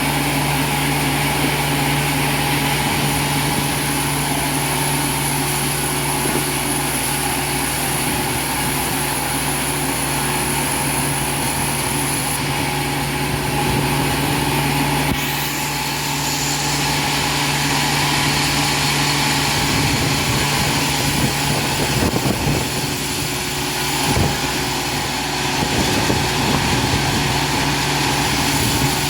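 Sawmill machinery running with a steady hum. From about twenty seconds in, irregular knocks and clatter join it.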